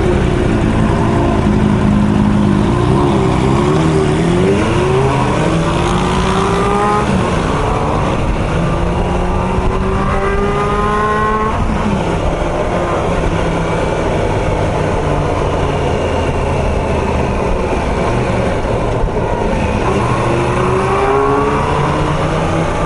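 High-revving motorcycle engine with an F1-like note, climbing in pitch under acceleration and dropping back at each gear change, several times over.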